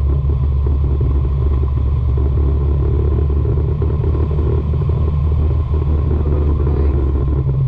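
Nissan 350Z's V6 engine running steadily under way, a loud continuous low engine note with road and wind noise.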